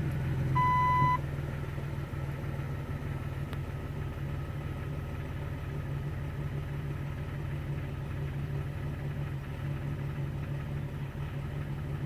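Jeep Cherokee XJ's 4.0-litre inline-six idling steadily just after being started on fresh oil, while oil pressure builds through the empty new filter. A single high beep sounds briefly about half a second in.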